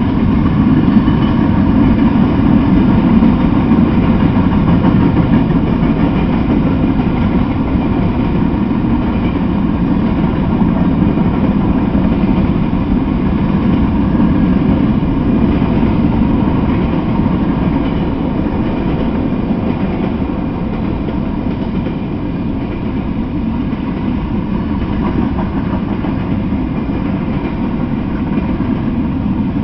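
Freight train cars rolling past on the rails: a steady, loud rumble of wheels on track, easing slightly in the second half.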